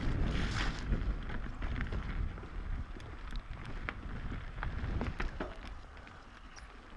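Mountain bike descending a wet dirt trail: wind rushing over the microphone, tyres rolling through mud, and the bike's chain and frame rattling and clicking over bumps. It gets quieter near the end.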